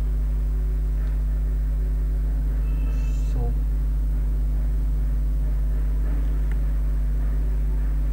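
Steady low electrical hum with a buzzy stack of overtones, from the recording's microphone chain, unchanged throughout. A faint short sound comes about three and a half seconds in.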